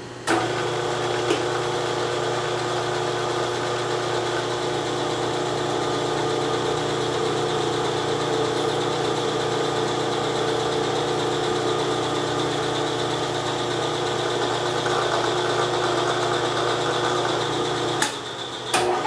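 Milling machine geared down to its lowest speed, 80 RPM, running under power to drive a spiral point tap through the hole: a steady mechanical hum with a gear whine, starting with a click just after the start. It stops for under a second near the end and starts again, the spindle being thrown into reverse to back the tap out.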